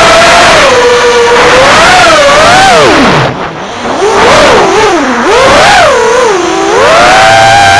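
Small drone's electric motors and propellers whining, the pitch rising and falling repeatedly as the throttle changes and dropping low briefly a little over three seconds in. This is the odd noise left after a crash and a propeller change, which the owner thinks may come from a motor that took in mud.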